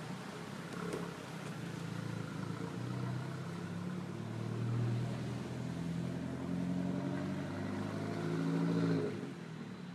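A vehicle's engine running and revving as it drives up a snow-covered street, its pitch wavering and rising, loudest near the end before dropping away about nine seconds in.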